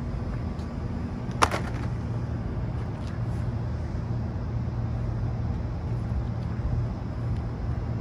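Steady low hum of running rooftop air-conditioning equipment, with one sharp metallic clink about a second and a half in.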